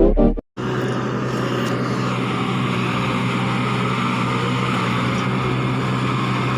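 A snatch of electronic music cuts off half a second in. After a brief gap, an engine runs steadily at an even pitch.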